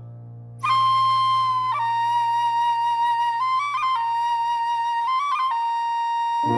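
Sogeum, a small Korean transverse bamboo flute, playing a long held high note that comes in about half a second in. The note dips slightly in pitch and is twice decorated with quick upward ornaments. A fuller accompaniment comes in right at the end.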